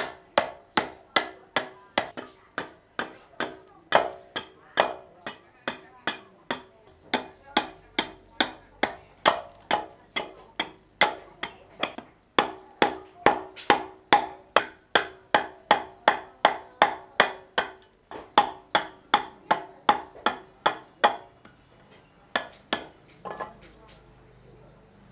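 Repeated blows of a hand tool striking wood, a steady rhythm of about two to three knocks a second, each with a short wooden ring; the blows stop about 21 seconds in, followed by a couple of stray knocks.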